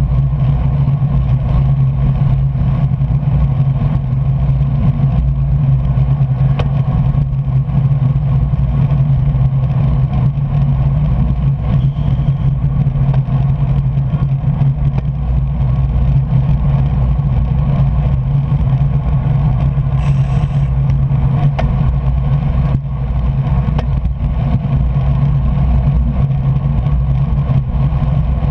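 Steady rush of wind and road noise on a camera riding on a racing bicycle at speed, loudest and deepest at the low end, with a brief dip a little after the middle.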